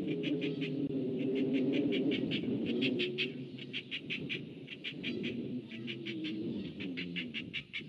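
Birds calling: a rapid, even series of short high notes, about five a second, over lower honking calls that are loudest in the first three seconds and then fade.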